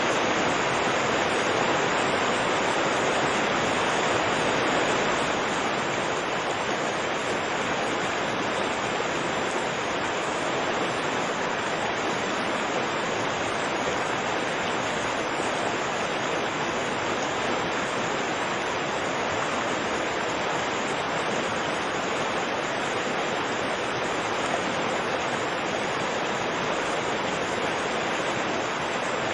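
Fast, turbulent river water rushing steadily, a dense even roar without pauses.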